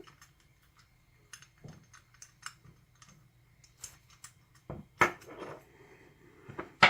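Scattered light metal clicks and taps from an Allen key and padlock parts being worked while a freshly loosened screw is backed out of a padlock in a vise, with two sharper clacks about five seconds in and near the end.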